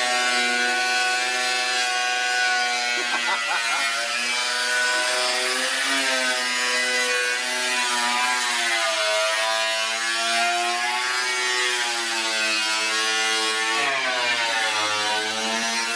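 Angle grinder with a cutting disc cutting through a car's sheet-metal body panel: a steady motor whine over the hiss of the disc on steel. The pitch sags and recovers several times as the disc is pressed into the cut.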